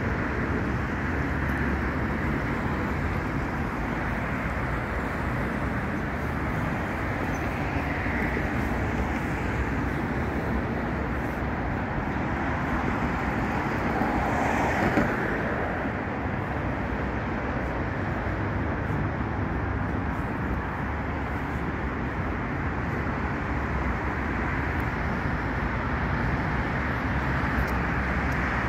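Steady city road traffic: cars running along the street, with one louder swell about halfway through.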